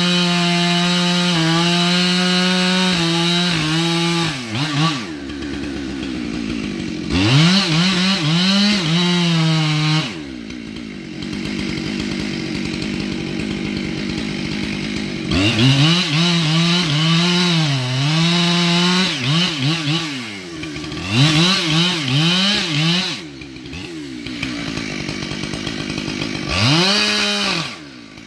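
Chainsaw cutting wood at full throttle, its pitch sagging and recovering as the chain bites. Between cuts it drops back to idle, then revs up and cuts again several times, with a short burst of throttle near the end.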